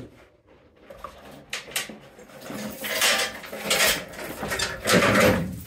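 Loose metal parts clinking and clattering as they are handled: a few light clicks, then about three seconds of rougher clattering.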